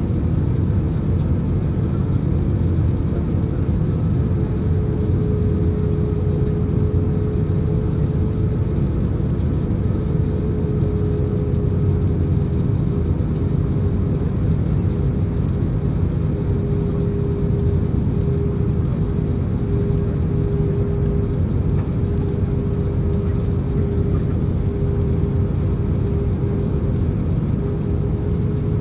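Steady cabin noise of an Airbus A319 in flight: its IAE V2500 jet engines and the airflow over the fuselage make an even, low rush. About four seconds in, a thin steady mid-pitched hum joins it.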